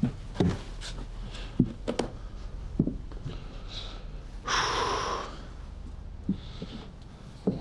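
Irregular footsteps moving about a small room, and about four and a half seconds in a short, loud breath through the nose lasting under a second.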